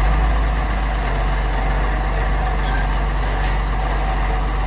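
Forklift engine running steadily with a low drone while it moves a detached fairground ride arm.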